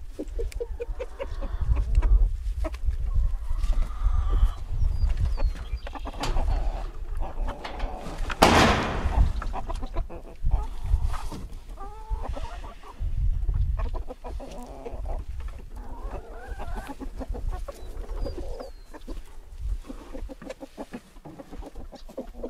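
A flock of hens clucking in and around a pen, with a brief loud rush of noise about eight seconds in.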